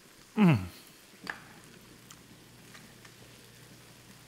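A man's loud, short 'mmm' of enjoyment, falling in pitch, as he eats. After it comes a faint sizzle with light crackles from thin pasta and squid cooking down in a wide pan as the liquid evaporates.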